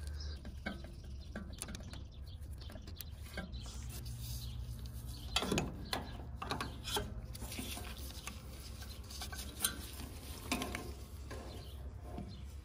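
Scattered metal clicks, scrapes and knocks as bolts and the front-mount distributor of a Ford 2N tractor engine are handled and the distributor is worked off, over a steady low hum.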